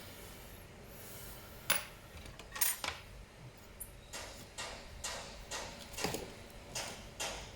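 Sharp clicks and taps of small hard laptop parts being handled during a repair: a few separate clicks, then from about four seconds in a regular run of clicks, about three a second.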